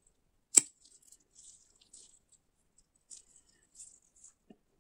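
The crunchy coated shell of a Japanese-style peanut snack cracking sharply once between fingers about half a second in, followed by faint, scattered crackles of the broken coating pieces.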